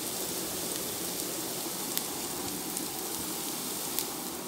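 Chopped onion and garlic sizzling in hot oil in a frying pan: a steady hiss with two sharp pops, one about two seconds in and one near the end.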